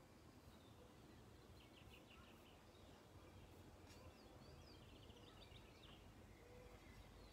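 Faint birdsong: two quick trills and a few scattered chirps over a low, steady background rumble.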